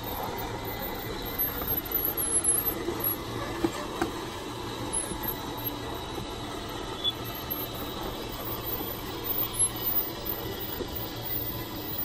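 Electric bedroom slide-out of a Forest River Forester 3011DS motorhome retracting: the slide motor runs steadily with a low hum as the room moves in, with a few scrapes and knocks along the way.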